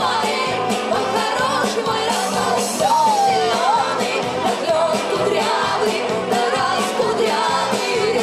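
Music with singing over a steady dance beat.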